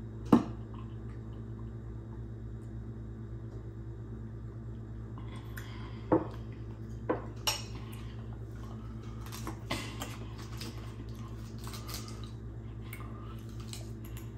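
A metal fork clinking and scraping against a plate of food. There is a sharp clink about half a second in, then a few lighter clinks between about six and ten seconds, over a steady low hum.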